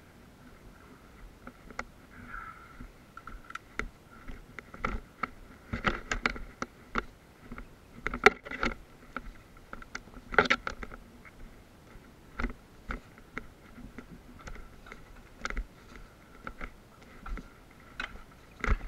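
Boots crunching and scraping over gravel and broken brick rubble in irregular walking steps, with a few louder steps and knocks about a third and halfway through.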